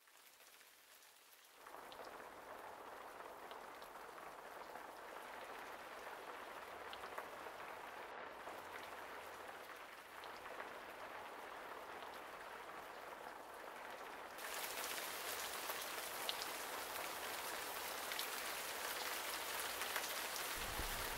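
Steady rain falling, a soft even hiss with scattered small drips. It comes in about one and a half seconds in and grows louder and brighter about fourteen seconds in.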